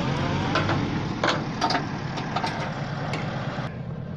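Tow truck engine idling steadily, with a few sharp metallic clicks and clanks from the flatbed as the vehicle on it is being secured.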